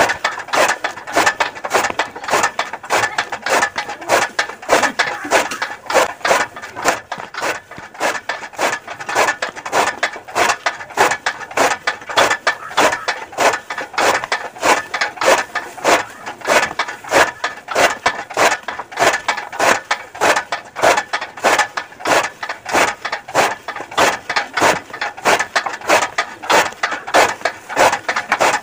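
Hand-cranked chaff cutter chopping green fodder: its flywheel blades slice through the grass in a fast, steady rhythm of chops, with the clicking of the feed gears.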